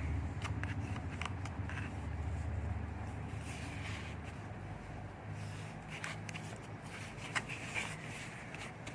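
A low steady rumble that fades out about halfway through, with scattered light clicks and rustles.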